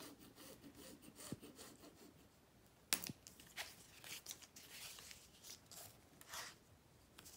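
Faint scratching and handling of a stiff strip of silicone faux leather being marked with a pen and then picked up and flipped over on a cutting mat. A sharp click comes about three seconds in, followed by crinkling and rubbing as the strip is turned and laid down.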